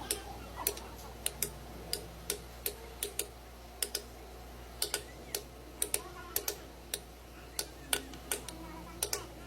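An irregular series of sharp clicks and taps, about two or three a second, over a faint steady low hum.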